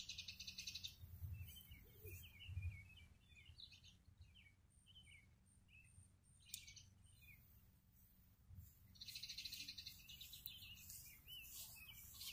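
Faint songbirds chirping. A fast, dry, high trill sounds at the start and again about nine seconds in, with short scattered chirps between. Two soft low thuds come about one and two and a half seconds in.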